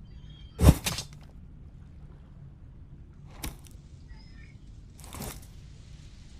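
Spear being thrown, three times: three short, sharp hits, the first and loudest less than a second in with a couple of smaller knocks right after it, then two more about two seconds apart.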